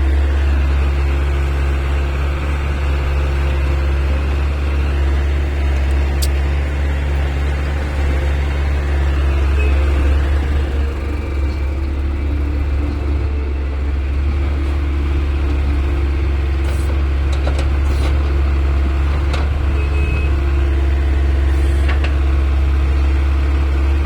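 Heavy diesel engine running steadily under load, with a strong low hum, and a few short clicks and knocks in the later part.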